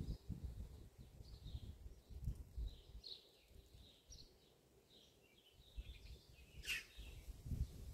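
Songbirds chirping in short, high notes every half second or so, with one louder call near the end that sweeps sharply down in pitch. A low, uneven rumble runs underneath and dies away in the middle.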